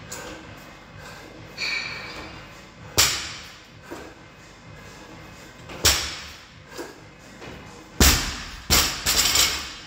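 Barbell with rubber bumper plates knocking sharply twice during the lift, then dropped onto the rubber gym floor near the end: a heavy thud followed by a few quick rebound knocks as it bounces.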